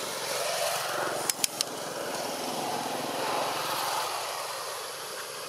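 A small engine running steadily, with three sharp clicks in quick succession about a second and a half in.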